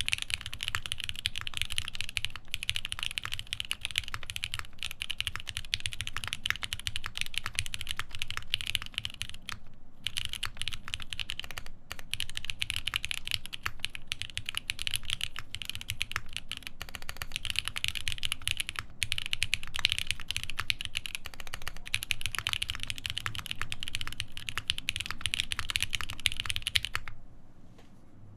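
Steady, fast typing on a Palmetto prototype mechanical keyboard with lubed Alpaca v2 linear switches, a half FR4 plate and GMK keycaps. There is a short break about ten seconds in, and the keystrokes stop shortly before the end.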